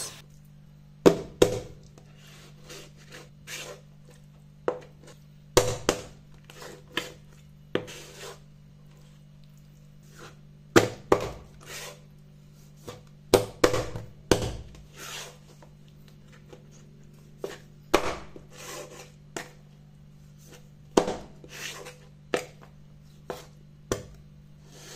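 Large kitchen knife chopping bone-in raw chicken legs and thighs on a wooden cutting board: irregular sharp chops into the board, often in quick pairs.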